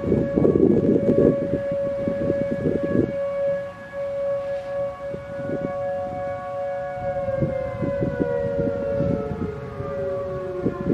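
Federal Signal Modulator 4016 electronic outdoor warning siren sounding its steady dual-tone alert. About seven seconds in, a second siren tone slides slowly down in pitch, and low gusts of wind noise on the microphone rumble underneath, heaviest in the first few seconds.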